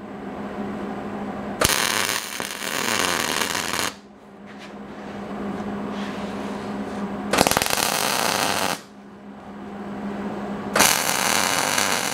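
Wire-feed (MIG) welder arc crackling in three separate bursts of one to two seconds, tack-welding steel bars together. A steady low hum fills the gaps between the welds.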